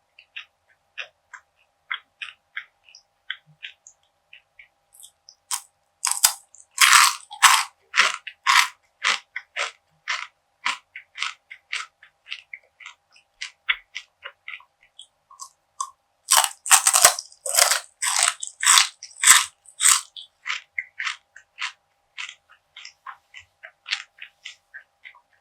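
Crunchy bites and chewing of crisp perilla seed gangjeong, a sweet bar of perilla seeds bound with syrup. Crackling chewing runs throughout, with two loud stretches of crunching bites, one about six seconds in and another about sixteen seconds in.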